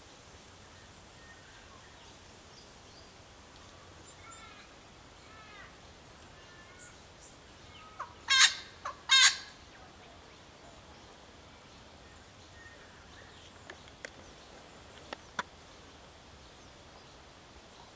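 Little wattlebird giving its characteristic scratchy croak: two loud, harsh calls about a second apart near the middle. Fainter bird chirps come before them, and a few short sharp notes after.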